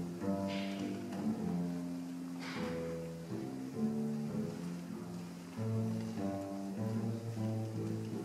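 Double bass played with a bow: a slow melody of long held low notes, one after another.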